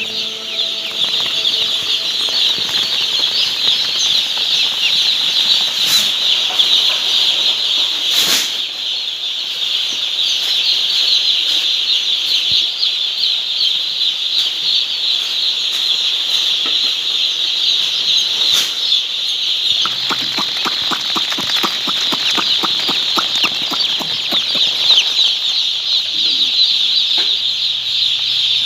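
Many young chicks peeping together in a continuous high-pitched chorus, with a few sharp knocks and, late on, a run of quick ticks.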